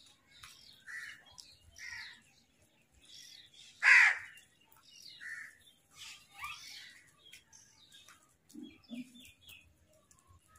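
House crows cawing in short separate calls about once a second, one much louder caw about four seconds in. Near the end comes a quick run of four short, high chirps from a smaller bird.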